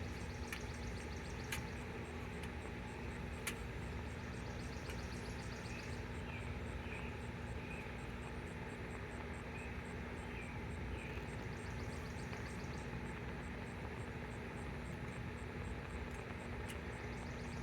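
Steady low rumble with insects chirping in fast, even trills throughout, and a couple of faint clicks.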